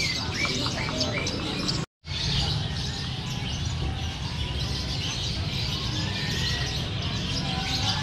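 Many caged small birds chirping and whistling over one another, a dense mix of short calls, over steady low background noise. The sound drops out completely for a moment about two seconds in.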